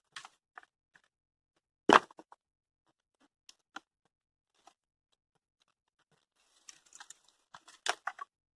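Scattered knocks and cracks of wood and debris being pulled and broken apart by hand, with one loud knock about two seconds in and a quick run of snaps and crackles near the end.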